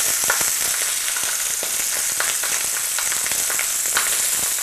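Sea bass fillet frying skin-side down in hot rapeseed oil while being pressed flat in the pan. It makes a steady sizzling hiss with scattered pops and crackles.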